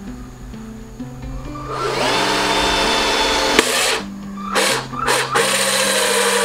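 Cordless drill with a hole saw cutting through a plastic side-mirror housing. It spins up about two seconds in and runs briefly, gives two short blips, then runs again for the last second or so, over background music.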